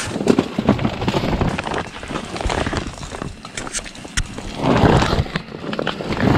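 Handling noise: clothing and shelter fabric rubbing and crackling against the camera's microphone as the camera is jostled. There is a denser, louder surge of rustling a little past the middle.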